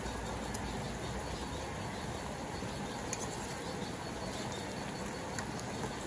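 Pork chops and sliced onion sizzling in their sauce in a wide metal pan, a steady hiss, with a few light clicks as metal tongs touch the pan.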